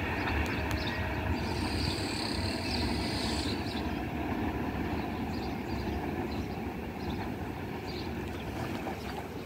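Vivalto double-deck passenger train running away around a curve, its steady low rumble slowly fading as it leaves.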